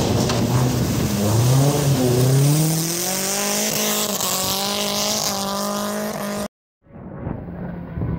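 Rally car engine revving hard as it accelerates away, its pitch climbing steeply and then held at high revs. About six and a half seconds in the sound cuts off abruptly, and a fainter, distant engine follows.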